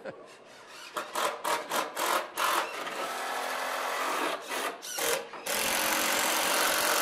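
A cordless drill driving screws into wood: a quick series of short trigger bursts, then a run of a second and a half, and a louder, steady run starting about five and a half seconds in.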